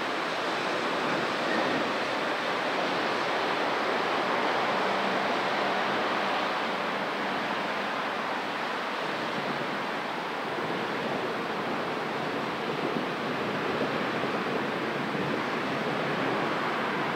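Rain pouring down steadily in a thunderstorm, an even hiss that swells slightly and then eases, with no thunderclap.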